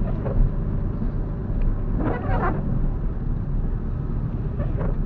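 A car driving on a wet road in the rain, heard from inside: a steady low rumble of engine and tyres, with a brief swish about two seconds in.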